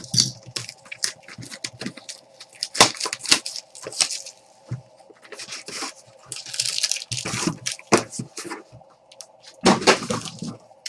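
Trading cards and card packs being handled on a table: a scatter of sharp clicks and taps as cards and packs are picked up and set down, with a longer rustle of wrapper or cards about six seconds in.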